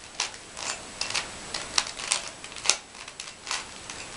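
Rubik's Cube layers being turned by hand: irregular plastic clicks and clacks, roughly two a second, with one sharper clack a little past the middle.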